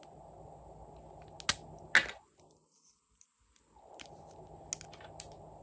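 Plastic lipstick caps pulled off, two sharp clicks about half a second apart, followed by a few lighter plastic clicks near the end.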